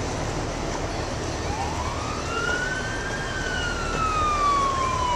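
A police boat's siren wailing. It starts about a second and a half in, rises slowly in pitch, then falls slowly over several seconds before starting to rise again. Underneath is a steady low rush of boat engine and water noise.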